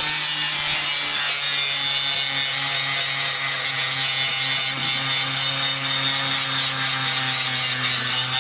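Angle grinder running steadily against the rusted frame rail under a car, a steady motor tone under the harsh grind of the disc on metal. The rail has rotted through with holes, and the rotten steel is being ground away.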